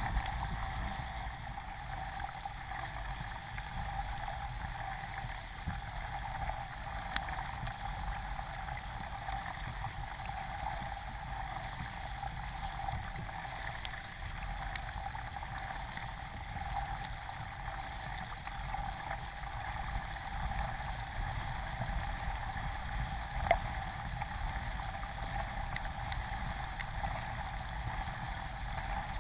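Water rushing and splashing along the hull of an Epic Legacy XL K1 racing kayak under way, picked up by a camera mounted on its deck, as a steady noise. A single sharp knock stands out about 23 seconds in.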